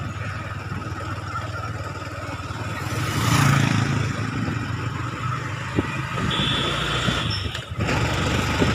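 TVS Apache single-cylinder motorcycle engine running while under way, with wind noise over it; the sound swells about three seconds in. A brief high steady tone sounds for about a second about six seconds in.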